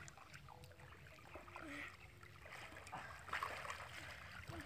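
Faint sloshing and splashing of shallow muddy water as people wade and swim through it, a little louder about three seconds in.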